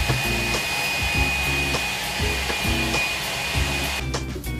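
Background music with a steady beat, over a steady whirring noise with a thin high whine in it. The whirring stops suddenly about four seconds in, leaving the music alone.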